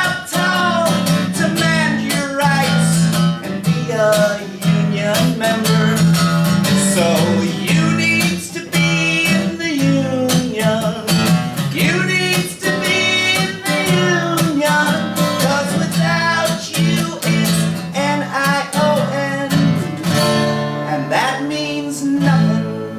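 Blues-rock guitar instrumental break: strummed chords under a lead line with bent notes.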